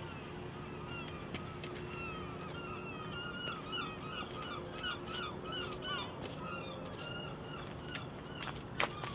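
A flock of birds calling, many short calls in quick succession, densest from about three to six seconds in, over a faint steady hum.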